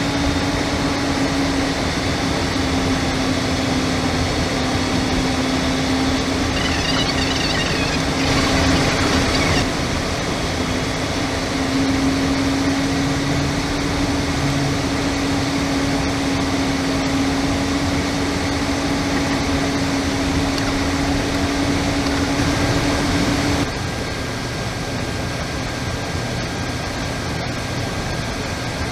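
Airbus A320 flight deck in flight: a steady rush of airflow and air-conditioning noise with a constant low hum. About 24 seconds in, the noise drops a little and the hum stops abruptly.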